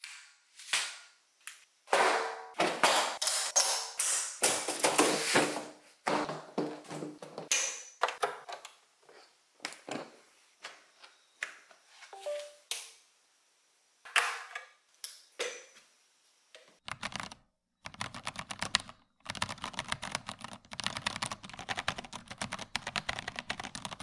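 Clicks and clacks of a hand-wired mechanical keyboard with unlubricated Cherry Brown switches. For about the first sixteen seconds there are separate, uneven key strikes and clacks; from about seventeen seconds in, rapid continuous typing.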